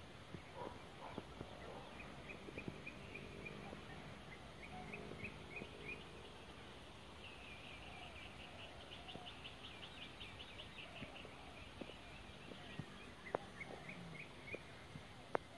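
Faint bird calls: strings of short, high notes, quickening into a rapid trill in the middle, over a low background hiss, with a few sharp clicks near the end.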